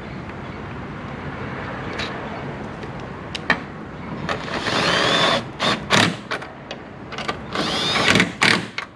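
Variable-speed power drill driving a 10 mm socket to snug the tail-lamp bolts, run in two short bursts about halfway through and near the end. Its whine rises and falls with the trigger, and there are a few sharp clicks between the bursts.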